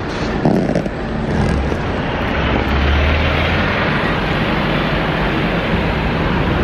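City road traffic: a double-decker bus passes close, its engine humming low for a couple of seconds about two seconds in, over a steady rush of traffic noise.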